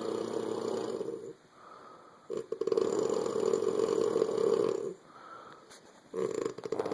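Loud, rattling snores that sound like a dirt bike, one about every three and a half seconds, with a softer breath between each.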